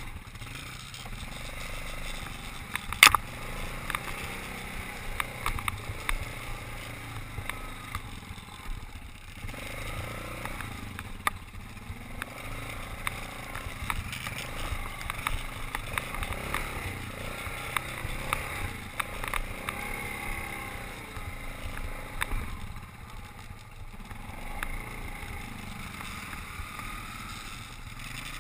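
Yamaha Grizzly ATV engine running as the quad rides over a rough, wet trail, with frequent knocks and rattles from the bumps; one sharp knock about three seconds in is the loudest sound.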